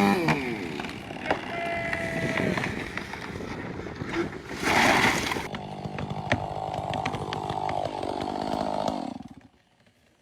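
Chainsaw running, its engine holding a steady note for a few seconds, with a brief loud rush of noise about halfway through; the sound cuts off suddenly near the end.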